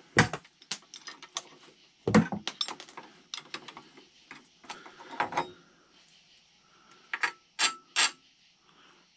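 Irregular metallic clicks and clanks of hand tools being worked, in short clusters with pauses between, the loudest about two seconds in and again near the end.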